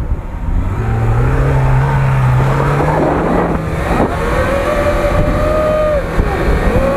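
Car engine revving hard under load as the off-road vehicle takes a run-up and powers its way out of the obstacle. The pitch climbs over the first couple of seconds and then holds high.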